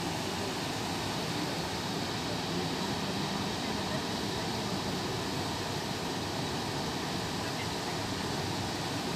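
Steady rushing of floodwater pouring in cascades down the terraced walls of a flooded open-pit mine, a continuous even wash of noise.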